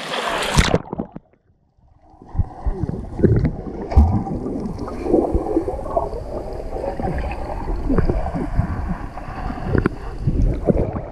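Splashing at the surface for about a second, then a sudden drop as the microphone goes under water. After that comes muffled underwater churning of a swimmer's kicks and bubbles, with irregular low thumps and gurgles.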